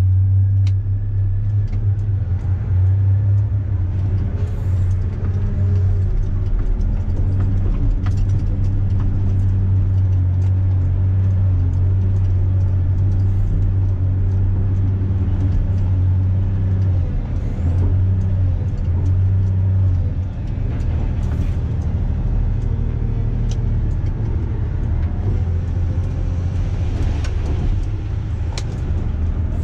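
Volvo L250F wheel loader's diesel engine running steadily under load, heard from inside the cab as a strong low drone that shifts to a lower, rougher note about two-thirds of the way through. Occasional short clicks and knocks sound over it.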